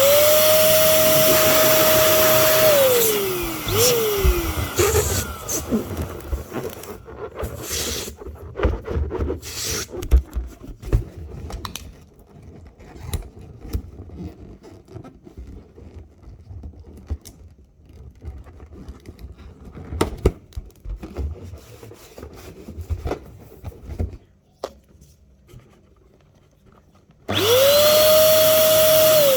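Electric balloon pump running for about three seconds, its motor pitch rising as it spins up, holding steady while it fills a balloon, then falling away as it stops. Then a long stretch of balloon rubber being handled and tied, with rubbing, squeaks and small clicks. Near the end the pump starts up again.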